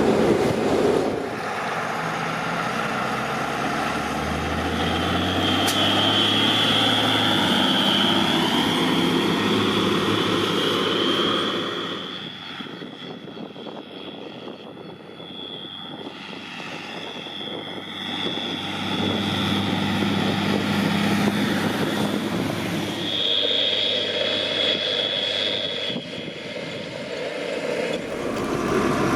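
Fendt Favorit 824 tractor's turbocharged diesel engine working under load, with a high turbo whistle over the engine note. The sound fades for several seconds midway, then returns with the whistle again near the end.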